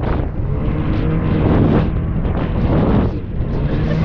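Small watercraft engine running at speed on open water, with wind buffeting the microphone.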